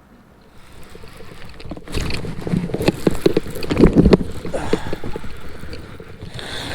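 Water splashing and knocks against a fishing kayak, a quick run of sharp sounds loudest from about two to four seconds in.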